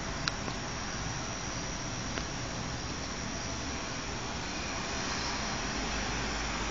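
Steady wind rushing over the camera's microphone during a thunderstorm, a little stronger and with more low rumble about five seconds in. A few small clicks come near the start.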